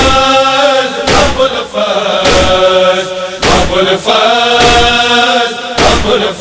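Noha chanting: male vocals in long held notes, with no instruments. A heavy thump of matam (chest-beating) keeps time about once every second.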